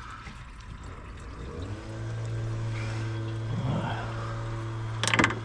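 A steady low mechanical hum, like a small electric motor running, starts about two seconds in and holds an even pitch. Near the end there is a brief sharp clatter.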